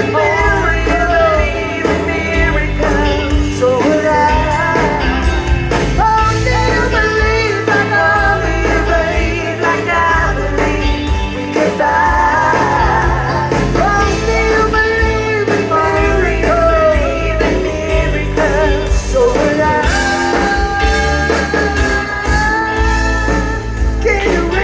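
Live rock band playing with a lead singer, the sung melody carried over a steady bass line.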